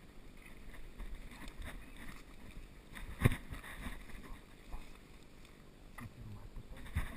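Rustling and handling noise from a camera being moved low among leaves and brush. There is one sharp, loud knock about three seconds in and smaller knocks near the end.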